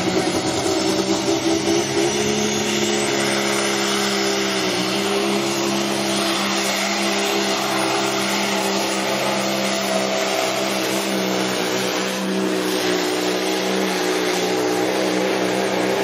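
Pro stock semi truck's diesel engine running flat out under load as it pulls the weight-transfer sled, a loud, steady drone that holds its pitch throughout with a brief dip about five seconds in.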